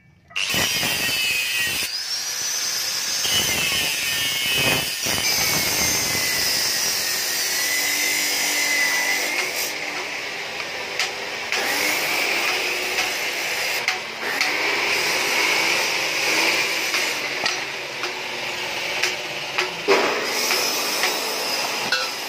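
Angle grinder with a cutting disc slicing through the steel shell of a stock Yamaha Xeon exhaust muffler to open it up for hollowing. It starts up about half a second in and runs on, its whine sagging and climbing again as the disc bites into the metal.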